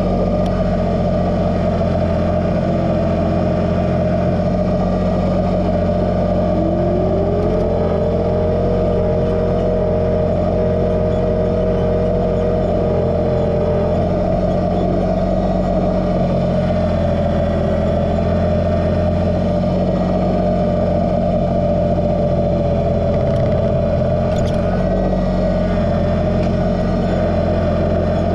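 Kubota BX2380 subcompact tractor's three-cylinder diesel running steadily while it works, with a steady whine over the engine hum; a second, lower whine rises about six seconds in and holds for several seconds.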